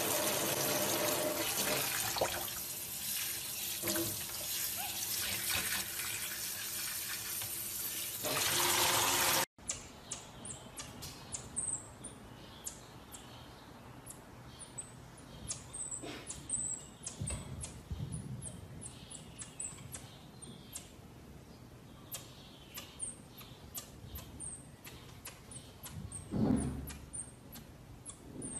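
A water tap running steadily, cut off suddenly about nine seconds in. After that come many short, high chirps from small monkeys such as marmosets, with scattered light clicks.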